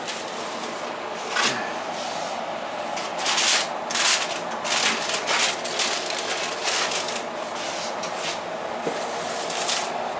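Cookware being handled: a series of clattering knocks and scraping rubs, as a roasting pan and its lid are moved, over a steady background hum.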